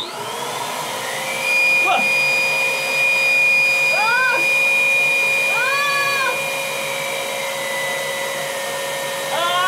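Small electric air pump running with a steady whine as it inflates a large balloon stuffed under a T-shirt. Three short rising-and-falling squeals cut in, at about four, six and nine and a half seconds.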